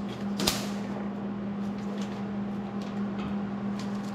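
A steady low hum, with one sharp click about half a second in and a few faint clicks and taps of metal parts being handled.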